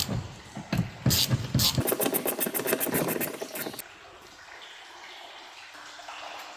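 A few knocks of metal tools and parts, then a ratchet wrench clicking rapidly and evenly for about two seconds as a bolt is turned.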